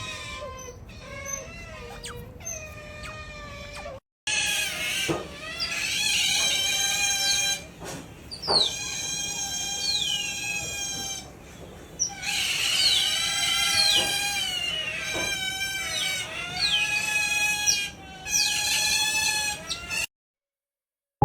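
Pet otter making long, high-pitched whining squeals with many overtones, the pitch sliding up and down between calls. The calls are quieter at first and louder after a cut about four seconds in.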